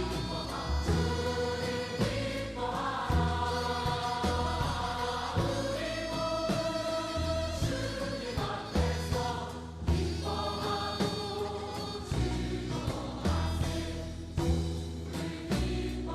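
Music with a group of singing voices over a held bass line and frequent percussion hits, as accompaniment to a Korean dance and drum performance.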